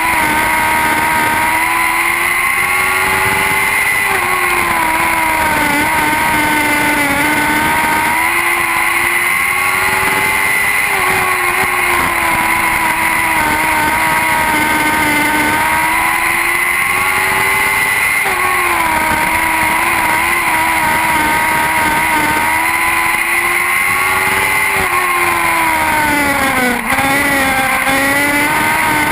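Lightning sprint cars racing, their motorcycle engines running at high revs. The engine pitch swells and sags every few seconds as the cars lap the track, with a brief dip in loudness near the end.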